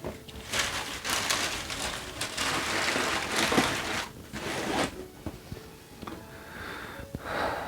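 Paper and packaging rustling and crinkling as a shoebox is handled and unpacked, loudest for the first few seconds, with a few sharp clicks and a shorter rustle near the end.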